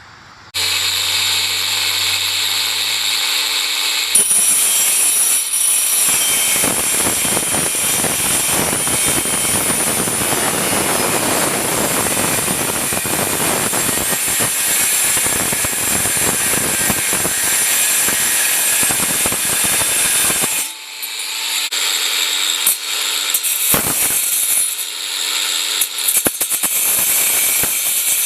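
Power saw cutting a length of metal pipe to make a hitch tube. The motor runs with a steady high whine for a few seconds, then cuts under load with a loud, dense grinding noise for about sixteen seconds. After that the sound lightens and turns intermittent until it stops.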